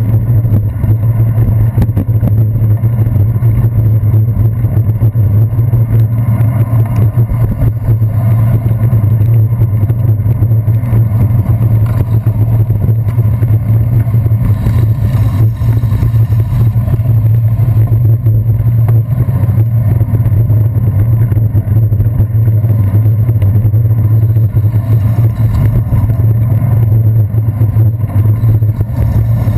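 Loud, steady, muffled rumble of wind and road vibration on a handlebar-mounted GoPro Hero 2 as a bicycle rides over wet city streets, with passing traffic mixed in.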